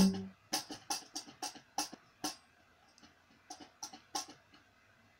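Acoustic guitar played quietly in short, muted, percussive strokes: about ten quick strums in the first two and a half seconds, then a few more around four seconds before it trails off.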